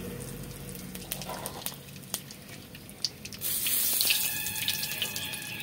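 Bay leaf and cumin seeds crackling faintly in hot oil in a kadai. About three and a half seconds in, a louder steady hiss starts, joined a moment later by a whistling tone, and fades near the end.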